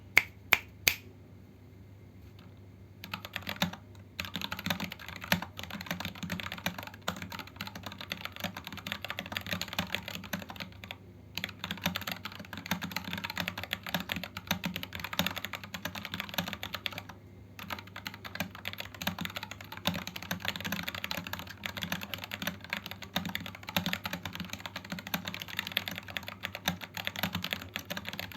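Typing on a 60% mechanical keyboard with Gateron Red linear switches and PBT XDA-profile keycaps: a few sharp clicks at the very start, then fast, continuous keystrokes from about three seconds in, broken by two short pauses.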